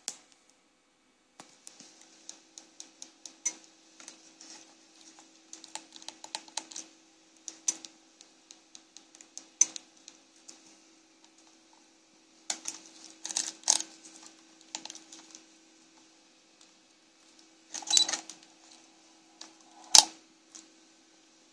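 Small plastic clicks from a Canon EOS digital SLR's buttons and rear control dial being pressed and turned, coming irregularly in quick runs and single clicks. There are denser bursts of clicking in the second half, and one louder sharp click near the end.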